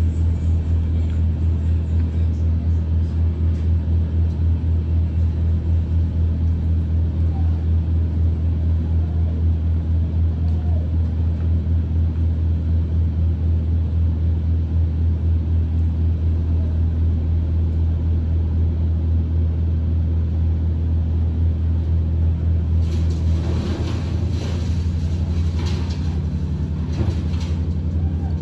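A large engine running steadily with a low, pulsing hum. About 23 seconds in, the pulse changes and an irregular, harsher crackling and rattling noise joins it.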